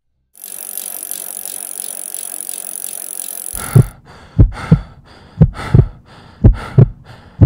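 Steady hiss, then from about halfway a run of heavy thumps in pairs, about one pair a second, in a heartbeat-like rhythm.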